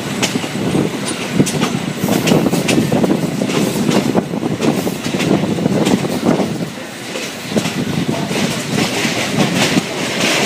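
Passenger train coach running along the track: a steady rumble of the wheels on the rails with irregular clicking and clattering, heard through an open coach window. There is a brief dip in the noise about seven seconds in.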